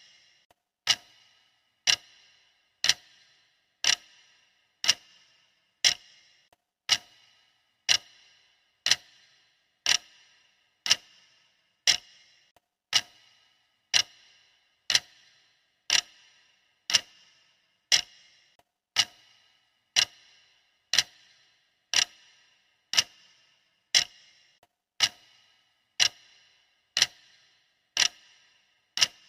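Clock ticking steadily, one sharp tick a second: the ticking sound of a countdown timer.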